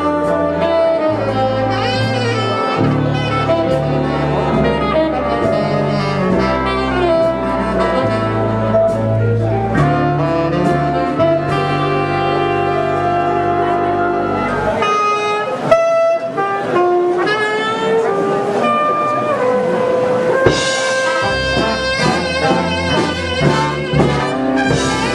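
Instrumental jazz music led by saxophone and brass over a bass line; the bass drops out about 15 seconds in and the music changes.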